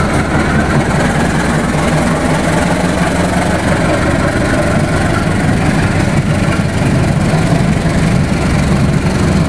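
Diesel-electric locomotive engine running steadily, a loud low drone that holds even without revving up or down.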